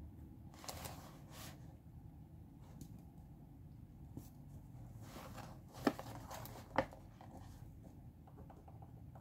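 Paper pages of a workbook rustling as they are handled, with two sharp clicks about a second apart past the middle, over a faint steady room hum.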